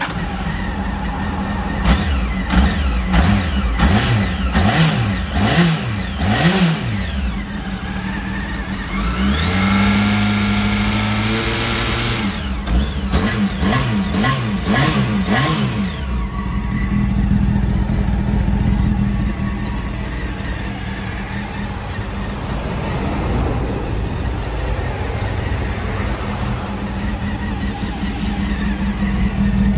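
Honda Hornet 600 (PC34) inline-four engine running just after start-up: blipped repeatedly, then held at raised revs for about three seconds, blipped again, and settling to a steady idle for the last half.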